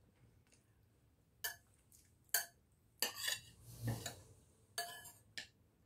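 Metal spoon clinking and scraping against ceramic bowls and plates in a handful of short, separate strikes.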